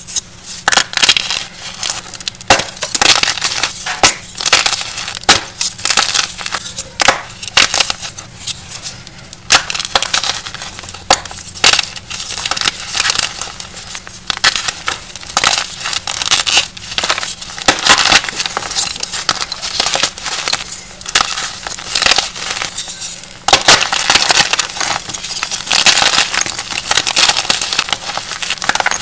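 Blocks of cornstarch-loaded gym chalk crushed and crumbled between bare hands: continual dry, powdery crunching with frequent sharp cracks as chunks break apart.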